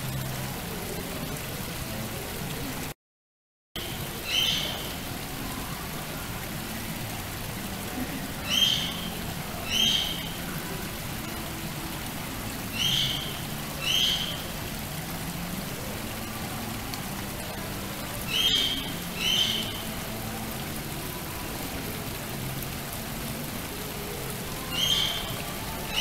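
Small garden waterfall splashing steadily into a koi pond. A short high chirp repeats over it, mostly in pairs about a second apart every four to five seconds. The sound cuts out completely for a moment about three seconds in.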